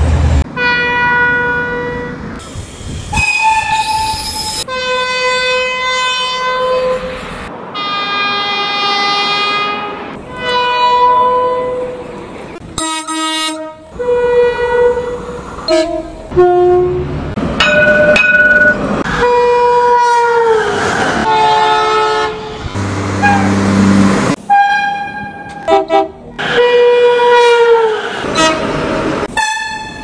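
Irish Rail train horns sounding a string of separate blasts, one after another. Some are two-note chords, and several slide down in pitch at the end as the train passes.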